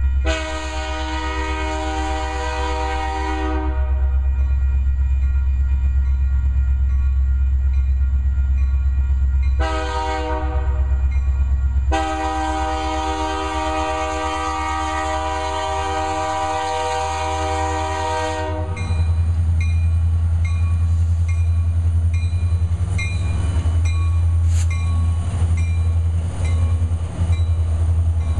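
Union Pacific EMD SD70M diesel locomotives sounding their air horn for a grade crossing: a long blast, a short one, then a long one, over a deep steady engine rumble. After the horn stops, the locomotives pass close by, the engine rumble louder, with wheels clicking over the rail joints.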